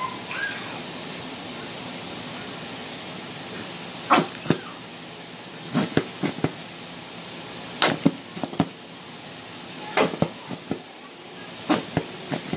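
Sauce bottle shaken and knocked over a dish to get the sauce out: five bursts of two to four sharp knocks about every two seconds, starting about four seconds in.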